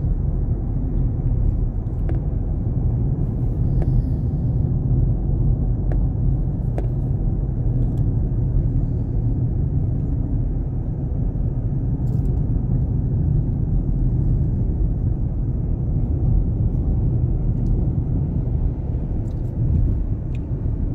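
Steady low rumble of a car on the move, heard from inside the cabin: engine and road noise with no change in pace, and a few faint ticks.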